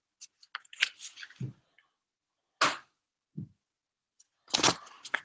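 Sticker packets and paper stickers handled close to the microphone: a string of short crackles and taps, with two brief low thumps.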